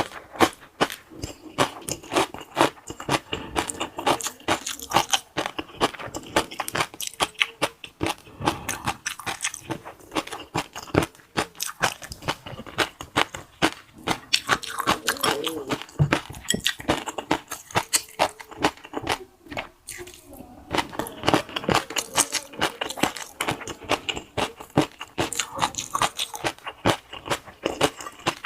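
Close-miked eating: someone biting and chewing crunchy food, with a dense, irregular run of crunches and crackles.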